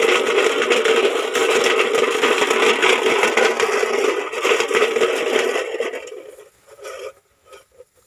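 Empty metal tin can shaken hard and rattling fast as a makeshift noisemaker to scare sparrows off ripening rice; the rattle dies away about six seconds in, leaving a few light clicks.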